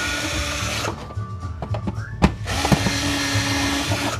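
Cordless drill/driver backing screws out of a plastic printer-scanner housing. It runs in two bursts: a short one at the start, then a longer one from about halfway through, with a steady whine.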